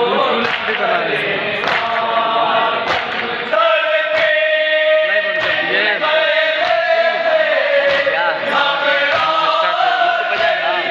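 Men's voices chanting a nauha (Shia lament) together, with the thud of hands beating chests (matam) in a steady beat about once every second and a quarter. From about three and a half seconds in, the chant settles into long, drawn-out held notes.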